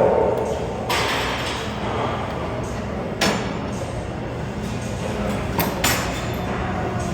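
Cable row machine's weight stack clanking as the plates touch down, a sharp metallic knock about every two and a half seconds, with a double knock near the end, over steady gym background noise.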